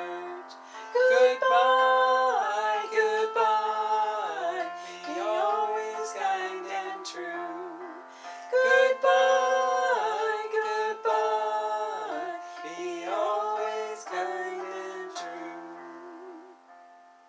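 A woman singing a children's goodbye song, with instrumental accompaniment, in two main phrases; it fades out near the end.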